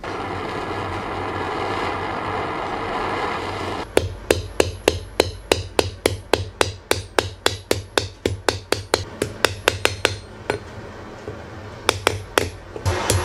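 Gas blowtorch flame hissing steadily for about four seconds. Then a hammer strikes a bent nail against a steel block, straightening it, in quick blows about four a second, each with a ringing metallic ping. The blows stop near the end, then two more follow.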